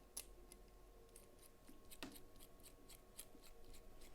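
Faint, irregular small clicks and ticks of a T6 Torx driver turning a tiny screw in a folding knife's handle scales as it is tightened down, with one slightly sharper click about two seconds in.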